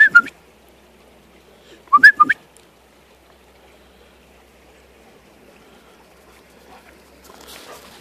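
Two quick bursts of short, high, rising whistle-like chirps close to the microphone, a person calling a dog, one at the start and one about two seconds in. Footsteps crunching in snow begin near the end.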